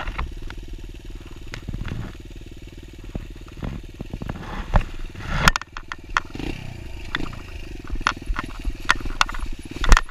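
Kawasaki dirt bike engine idling steadily, with a few sharp knocks and clicks, the loudest about five seconds in and just before the end.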